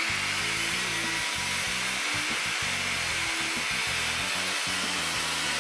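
Makita circular saw running at full speed with no load, a steady high whine, just before the blade enters the wood.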